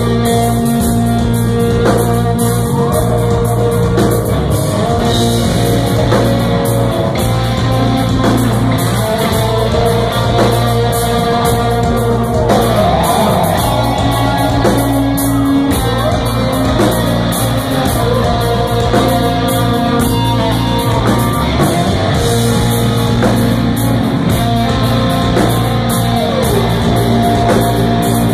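Live rock band playing loudly, with electric guitars, bass and drums and a man singing over them, heard from the crowd.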